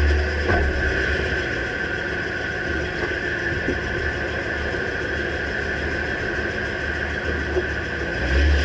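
2009 Dodge Ram pickup's engine idling steadily just after starting, with a constant high-pitched whine over the low rumble.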